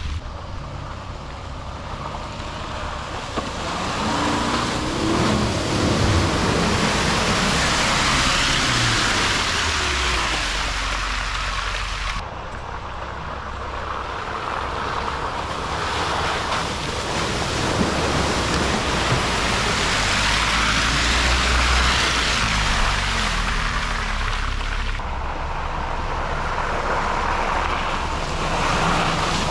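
Off-road 4x4 engine running and revving, its pitch rising and falling, under a heavy rushing noise. The sound cuts abruptly twice, about 12 and 25 seconds in.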